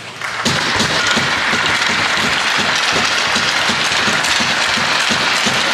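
Crowd applauding, starting suddenly about half a second in and carrying on as a steady dense clatter of claps.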